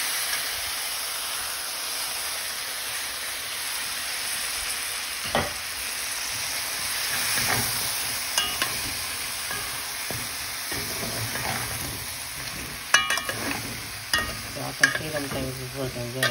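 Oxtails with chopped onion and scallion sizzling as they brown in a hot pan, stirred with a slotted metal spoon that scrapes and clicks against the pan. The spoon clicks come thick and loud near the end.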